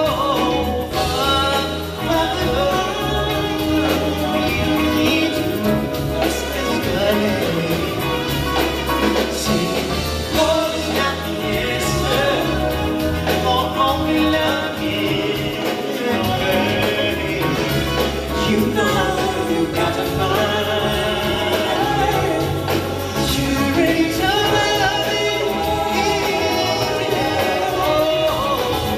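Live vocal group singing in harmony over a full backing band with a steady bass line.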